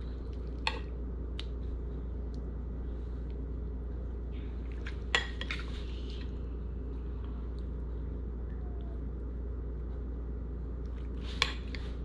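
A few sharp, spaced-out clinks of a spoon against ceramic dishes as lobster salad is spooned into buns, over a steady low hum.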